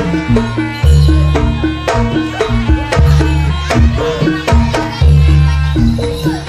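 Live Javanese jaranan gamelan music: hand drums beating a quick rhythm against ringing struck metal notes, with deep low strokes about once a second.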